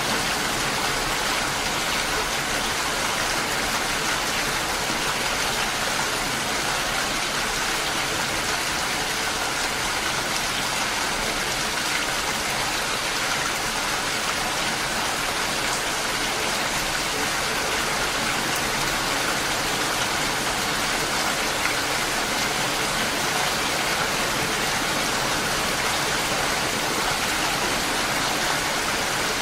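Steady heavy rain falling, an even unbroken hiss of many drops.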